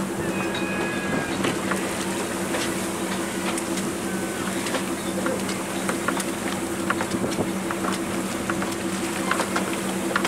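Boat engine running with a steady hum, over a noisy wash with scattered short clicks and splashes.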